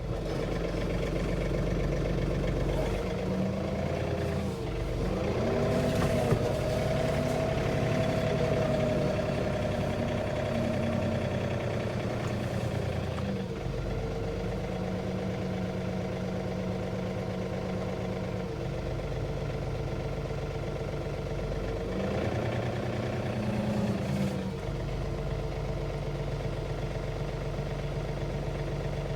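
Engine running steadily, its pitch dipping and rising again twice, about five seconds in and again near twenty-three seconds in, as the load or throttle changes.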